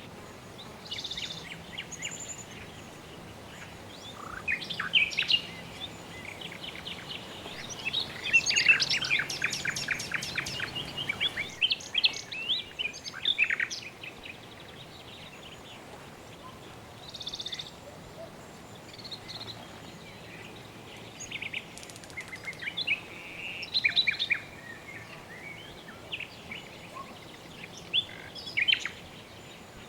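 Birds chirping and calling in short phrases, with a dense run of rapid repeated notes and trills partway through, over a faint steady background hiss.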